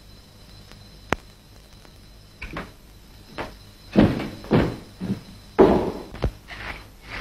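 A single sharp click about a second in, then a run of irregular heavy thuds, like footsteps on a wooden floor, as a man walks off toward a doorway.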